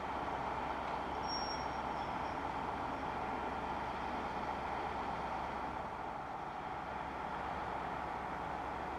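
Class 43 HST power car idling while standing at the platform: a steady diesel engine and cooling-fan drone. A brief faint high whistle sounds about a second in.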